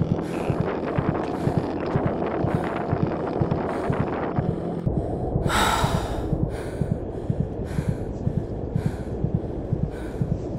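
Hard, quick breaths and gasps of exertion, about one a second and loudest about halfway through, from digging out a stuck snowmobile. Under them runs a steady low rumble with rapid thumps.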